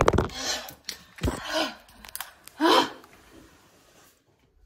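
A woman gasping and crying out in three short outbursts about a second and a half apart, reacting to the burning heat of an extremely hot chili chip in her mouth.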